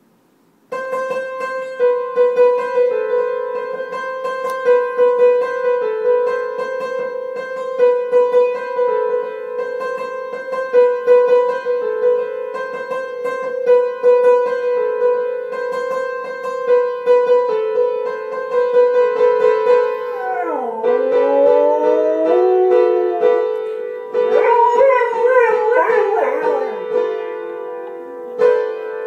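Music with a steady held tone and repeated plucked or struck notes. About twenty seconds in, a dog starts howling along with it: one long gliding howl, then a wavering, yodelling howl.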